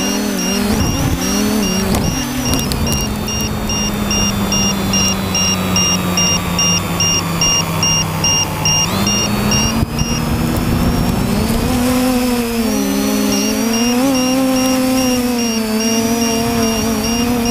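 TBS Discovery quadcopter's brushless motors and propellers, heard through its onboard GoPro: a steady low hum while it sits on the grass, then spinning up about nine seconds in, with the pitch wavering as it lifts off and flies low. A high, evenly pulsing tone runs faintly beneath for much of the time.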